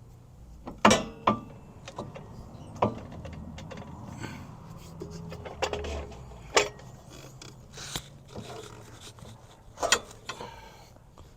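Metal clanks and scraping as a broken rear CV axle is worked loose from the hub: about seven sharp knocks at uneven intervals, the loudest about a second in and near the end, one leaving a short ring.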